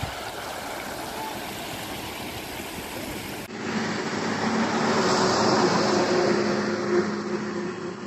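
Floodwater spilling over a road in a steady rush, with wind buffeting the microphone. About three and a half seconds in it cuts to a louder, steady engine hum with a low drone.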